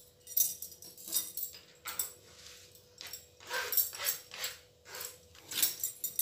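Kitchen knife chopping spinach leaves on a plastic cutting board: a string of irregular knocks against the board.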